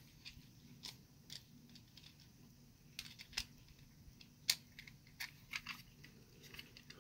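Faint, scattered clicks and light taps of a small model truck's plastic chassis and body being handled and pressed together, the chassis not seating all the way; the sharpest click comes a little past halfway.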